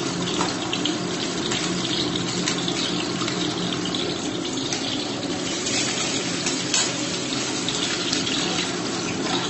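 Boiled eggs shallow-frying in a little hot oil in a kadai: a steady sizzle with scattered small crackles.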